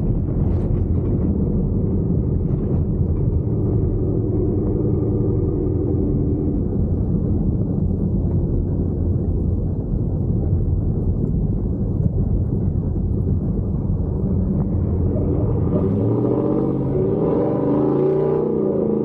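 First-generation Ford Raptor's V8 engine and running gear rumbling as the truck drives over a dirt track. Near the end the engine revs up and drops back.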